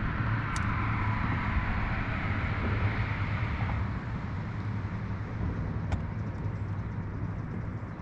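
A boat's motor running steadily with a low hum, over a rush of water and wind noise that eases off about halfway through.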